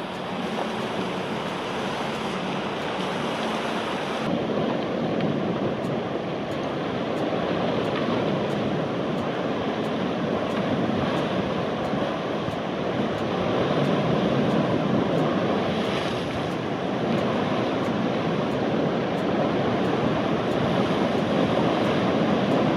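Sea waves washing against the shore: a steady rushing that swells and eases slowly, with wind on the microphone.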